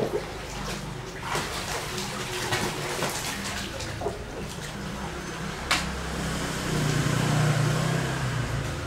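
Water splashing and sloshing in a small inflatable paddling pool as a child swims and thrashes in it, with a sharp click partway through and a louder stretch near the end as the child sits up.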